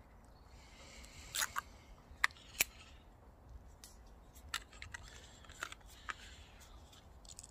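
Plastic squeezy sauce bottle being opened by hand: scattered small sharp clicks and crinkles from working at the cap.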